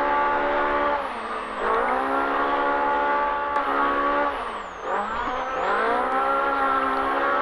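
Polaris RZR Pro R's four-cylinder engine running hard under racing load. The revs drop briefly about a second in, then fall more deeply about four and a half seconds in before climbing back up.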